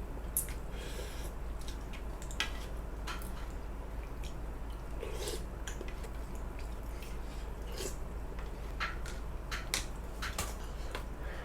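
Spoon and chopsticks clicking and scraping against a bowl of samgyetang while eating, with soft wet eating sounds between the clicks. The clicks are short and come irregularly, about a dozen of them, over a steady low hum.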